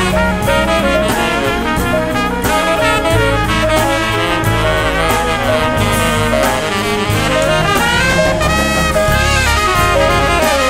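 Instrumental jazz music with brass and saxophone over a steady bass line.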